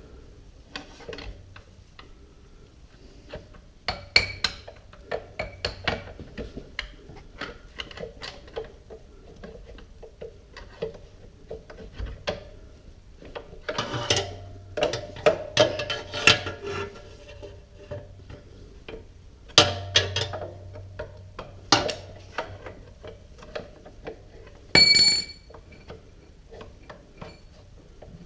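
Metal tools clinking, clicking and knocking irregularly against the motorcycle's metal parts as a jammed part is worked at, a bunch of noise. There is one sharper ringing metallic strike about 25 seconds in.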